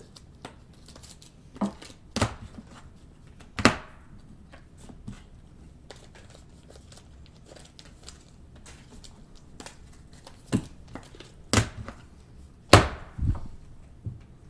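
Trading cards being handled on a table: scattered sharp taps and clicks as cards and packs are flipped, stacked and set down, a few louder knocks among many faint ones.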